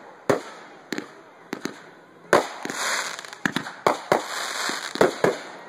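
Aerial fireworks bursting overhead: about ten sharp bangs in an uneven string, some in quick pairs, with a crackling hiss of burning stars between them in the middle.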